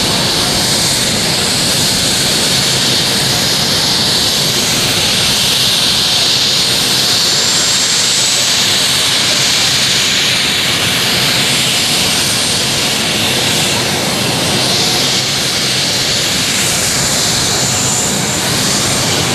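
A modified pulling tractor's engines running loud and steady at idle, with a faint high whine over a dense rushing noise and no revving.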